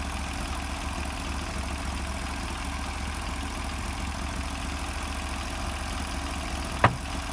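Portable bandsaw mill's engine idling steadily between cuts, with one brief sharp click near the end.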